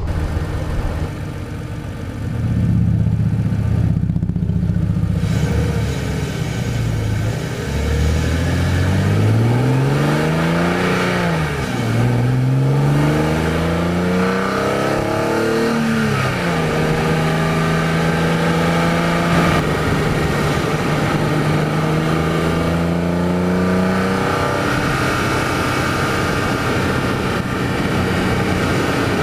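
BMW E46 M3's S54 inline-six, fitted with a carbon fibre CSL-style airbox, pulling through the gears: the revs rise and fall twice as it upshifts, then hold steady and climb slowly near the end, with the intake sound prominent.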